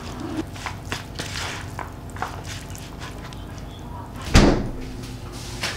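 Metal spoon clicking and scraping in a paper bowl as rice is mixed for bibimbap, then a single heavy thump a little past four seconds in, the loudest sound.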